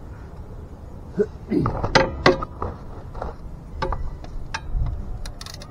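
Hand tools and metal parts clicking and clinking at the motorcycle's drain plugs, a handful of sharp knocks spread over several seconds, a few with a short ring.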